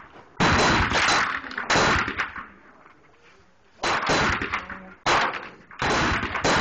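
.22 calibre Beretta pistol firing about five shots at uneven intervals, each shot followed by a long echo.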